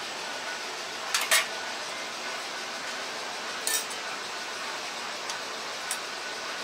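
Metal utensils clinking against stainless steel bowls and pans: a few sharp clinks, two close together about a second in, another pair near four seconds and two lighter ones near six seconds, over a steady background hiss.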